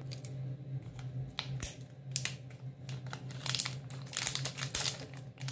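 Wrapper of a small packet crinkling as it is handled and cut open with small scissors: a run of short, sharp rustles and clicks.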